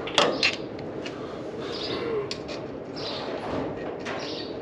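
A small plastic bag of bolts crinkling and rattling in the hand, with sharp crackles about a quarter and half a second in. A bird coos faintly in the background.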